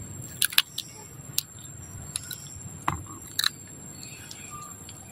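Macaque cracking peanut shells with its teeth and chewing, a series of sharp, irregular crunches over a low steady background.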